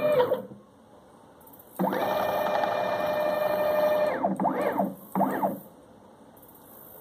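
Stepper motors of a homemade wooden-framed CNC machine whining as the axes move. The whine winds down at the start, stops for about a second, returns as a steady tone for about two seconds, then comes as two short whines that rise and fall in pitch as the axis speeds up and slows down. A sharp click comes at the end.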